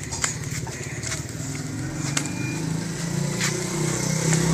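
A vehicle engine running, its hum growing steadily louder as it draws closer, with a few light clicks.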